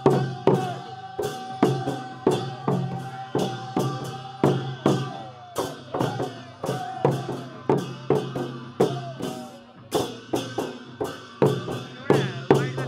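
Folk dance music: a drum struck in a steady, driving rhythm of about three beats a second, under a held, wavering melody line.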